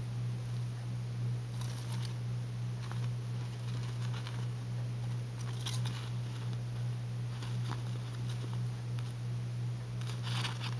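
Dwarf hamster moving about on a plastic floor sheet, making short crinkling rustles now and then, over a steady low hum.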